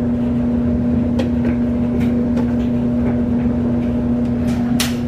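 Steady machine hum with one constant low tone, from a clothes dryer running next to the washer, with a few light clicks and taps over it.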